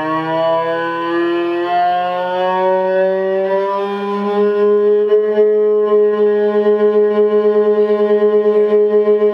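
A cello's bowed note sliding slowly up the G string, then settling about five seconds in on the instrument's wolf tone: the pitch holds but the note wobbles in a fast, even pulsing. The wolf tone is the string's note clashing with a resonance of the cello's body. Heard as a video played back over a hall's speakers.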